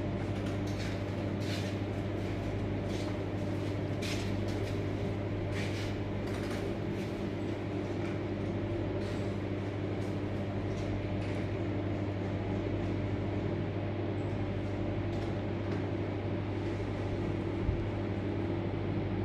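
Steady low electrical hum, with a few faint light clicks in the first several seconds.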